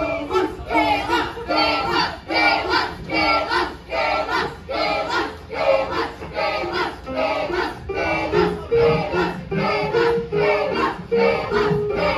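Choir chanting together in a steady rhythm, about two shouted syllables a second, with held sung notes joining in from about eight seconds in.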